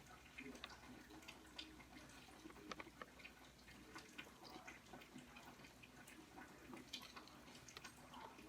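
Near silence with faint, scattered small ticks and scratches of a marker coloring on paper.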